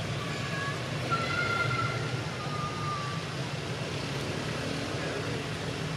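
Steady low outdoor rumble, like distant traffic or wind, with several brief thin whistled notes in the first three seconds.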